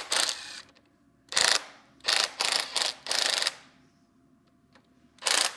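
Socket ratchet clicking in short bursts as it undoes the bolts of an engine's timing chain guide: about six quick bursts in the first three and a half seconds, a pause, then another burst just before the end.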